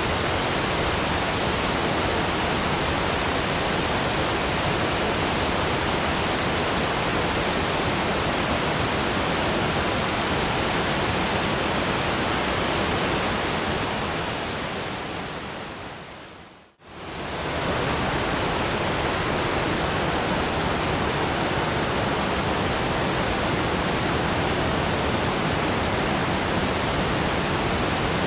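Steady, even rushing noise with no changes in texture. It fades down gradually to near silence about sixteen and a half seconds in, then comes back up to full level within about a second.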